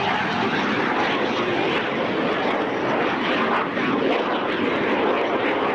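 Canadair CT-114 Tutor jets at takeoff power, their single turbojet engines making a loud, steady rush of jet noise as they roll and lift off the runway.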